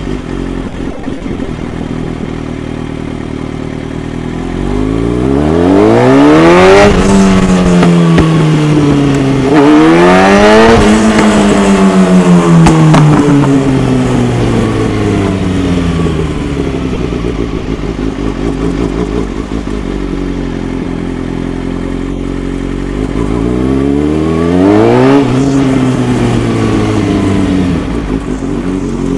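Stage-3 tuned Kawasaki Ninja ZX-6R's inline-four engine accelerating: a steady low note, then the revs climb, dip briefly at a gear change and climb again about five to eleven seconds in. The note then falls away slowly over about ten seconds, rises once more around twenty-three to twenty-five seconds in, and eases off.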